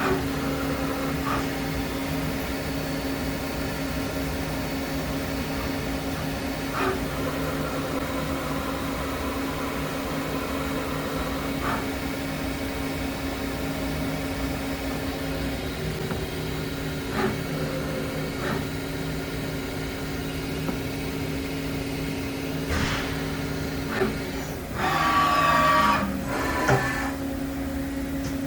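Daewoo DMV4020 CNC vertical machining center running under power: a steady two-tone hum with occasional light clicks. Near the end comes a louder burst of rushing noise lasting about a second and a half.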